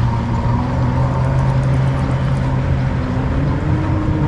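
Motorboat engine running steadily out on the water, a low hum whose pitch rises slightly about three and a half seconds in.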